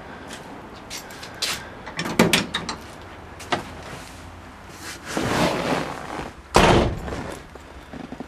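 Scattered clicks and a rustling swell, then the door of a 1966 Ford Galaxie 500 convertible shutting with a single loud thump about six and a half seconds in.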